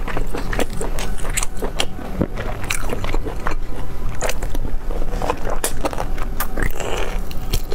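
Close-miked eating: wet biting and chewing of sauce-coated meat, with frequent short, sharp sticky clicks and mouth smacks.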